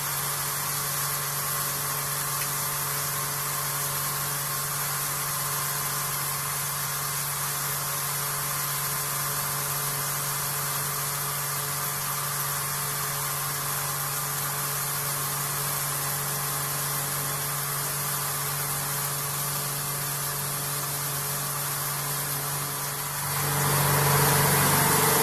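Vertical machining centre face-milling an aluminium part: a steady hum with several steady tones over a hiss, getting louder near the end.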